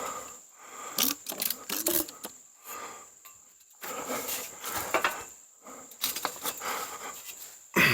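Metal ladder stand clinking and rattling as it is shifted and settled into place, with a man's heavy breathing in repeated swells about once a second.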